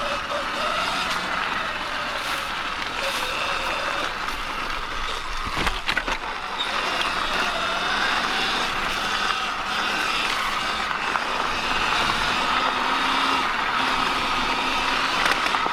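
Sur-Ron X electric dirt bike riding along a dirt trail: the motor's whine wavers in pitch with speed over a steady rush of noise. A cluster of sharp knocks, as from a bump, comes about six seconds in.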